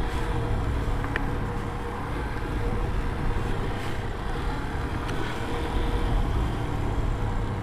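Motorcycle riding slowly along a gravel dirt road: the engine runs steadily, with rumbling tyre and gravel noise.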